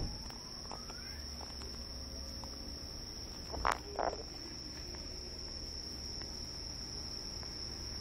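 A steady high-pitched trill of crickets, with two short, louder sounds about three and a half and four seconds in.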